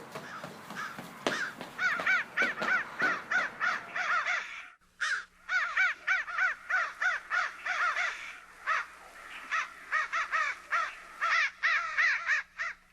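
Crows cawing, many calls over one another in a quick run of about three caws a second. The calls start about a second and a half in and break off briefly near five seconds.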